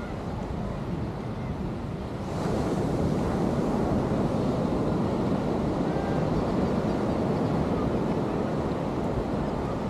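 Ocean surf washing on a sandy beach, with wind buffeting the microphone; the rush of the surf swells louder about two seconds in and holds.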